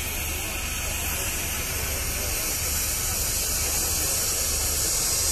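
Steam wagon hissing steadily as it lets off steam, getting a little louder toward the end.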